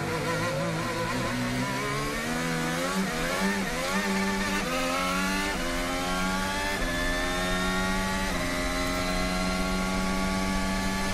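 Red Bull Formula 1 car's Renault-built turbocharged V6 hybrid engine, heard from the onboard camera, accelerating hard out of a slow corner. It upshifts about five times, with the pitch climbing and dropping at each shift, then holds high revs near the end.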